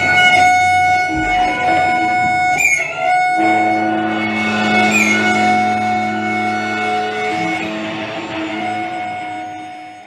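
Improvised drone music: sustained, overlapping electric guitar tones held steady. A lower drone enters about three and a half seconds in, and the whole texture fades down near the end.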